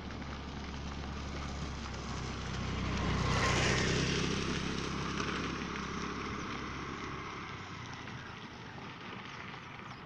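A large flock of waterbirds taking off from the water: many wings beating and feet pattering in a steady rushing clatter that swells to its loudest about three and a half seconds in, then eases off, with a low rumble underneath.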